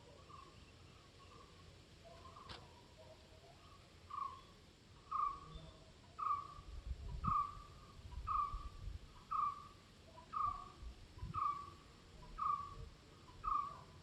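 A bird repeating one short, falling call note about once a second, faint at first and becoming clearly louder about four seconds in, over a faint steady background hiss.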